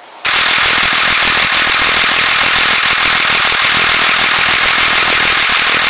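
12-valve Cummins 5.9-litre inline-six turbo diesel in a 1993 Dodge Ram 2500, heard up close with the hood open, running at a steady idle with its diesel clatter. The sound cuts in abruptly just after the start.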